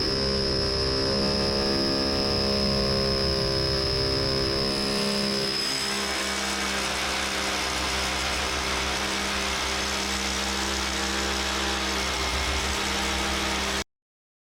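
Electric drill running steadily under load as it bores a hole through the concrete wall. Its sound changes about five and a half seconds in, and it cuts off abruptly near the end.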